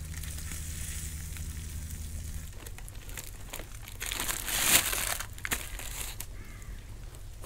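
Scallop shells scraping and crackling as they are moved about on a beach fire, with a short loud crunch and crackle about four to five seconds in and scattered clicks after it. A low steady hum under the first couple of seconds stops suddenly.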